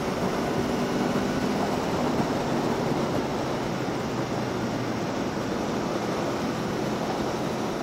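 Steady rush of wind and road noise from a 2021 Aprilia Tuono V4 1100 being ridden at road speed, with the V4 engine's low drone faint underneath.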